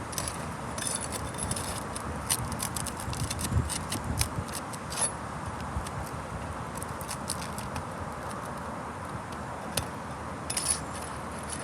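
Scattered light clicks and scrapes of tools and roof shingles being worked under as a roofer finds and pries at the shingle nails.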